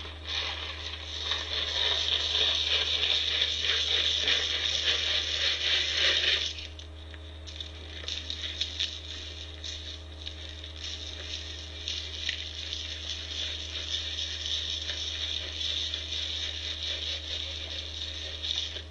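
Dry bird feed poured out of a scoop, a dense rattling for about six and a half seconds, then fainter scattered rattles and crunches as it is spread.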